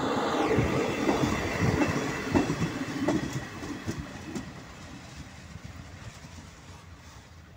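Czech class 814 RegioNova diesel railcar passing, its wheels clicking over the rail joints several times, then the sound fades away as it moves off after about four seconds.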